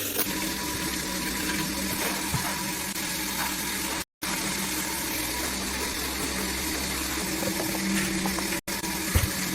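A machine running steadily, a hissing noise over a low hum, that cuts out completely twice for a moment, about four seconds in and again near the end.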